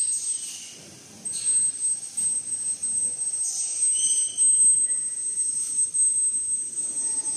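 Automatic single-roll toilet paper packing machine running. A steady high-pitched whine carries through, with irregular swishes and short squeaks as the rolls are fed and wrapped.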